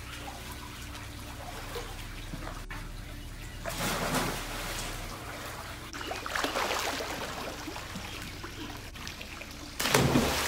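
Swimming-pool water splashing and trickling. Three louder swells of splashing come about four seconds in, around six to seven seconds in, and near the end.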